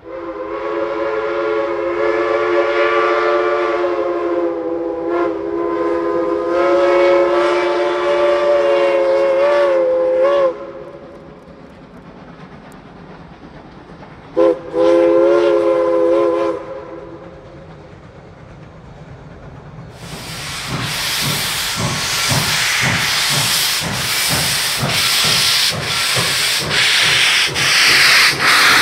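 Steam locomotive's whistle sounding one long blast of about ten seconds, several tones at once, then a short blast a few seconds later. Near the end, a steam locomotive working close by: loud hiss of steam from its open cylinder cocks with exhaust chuffs about twice a second.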